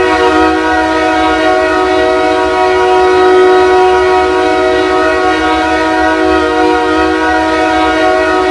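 Ice hockey goal horn blowing one long, steady, loud blast, a chord of several tones much like a train horn.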